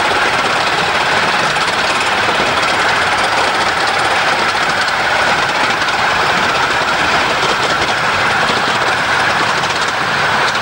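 A 15-inch-gauge Romney, Hythe and Dymchurch Railway steam locomotive and its train running at speed, heard close up from a carriage just behind the engine: a steady, fast clatter of exhaust beats and wheels on rail.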